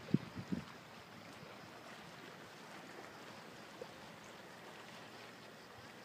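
Water washing steadily along the hull of a Bavaria 32 sailing yacht moving through calm sea, faint, with a few low thumps in the first half-second.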